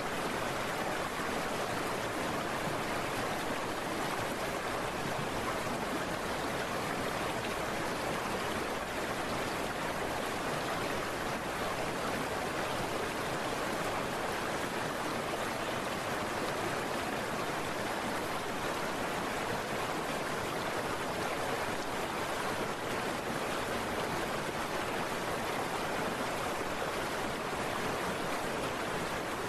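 Steady rushing of heavy rain and wet-road spray heard from a moving scooter, with no break or change.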